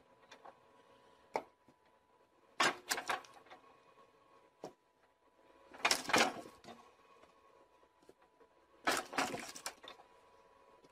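Logs cracking and splitting apart on the wedge of a motor-driven log splitter, three times about three seconds apart, over the machine's faint steady hum, with a couple of single sharp clicks in between.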